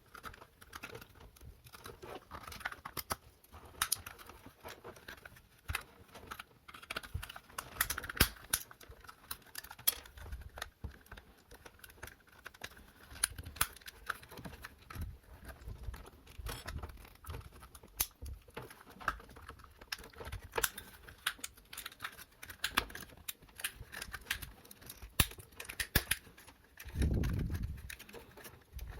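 Plastic housing of a push-button floor lamp switch being handled and worked at: irregular small plastic clicks, ticks and scrapes, with a duller bump near the end.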